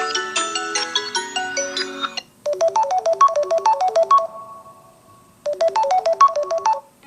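Samsung Galaxy S20 Ultra stock ringtones: one melodic ringtone ends about two seconds in, and after a short pause a different ringtone plays a rapid run of short bright notes, rings out on a held note, then repeats the run.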